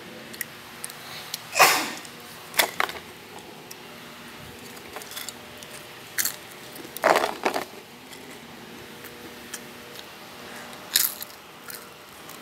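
Potato chips crunching in short, sharp bursts about five times at irregular intervals, over a faint steady room hum.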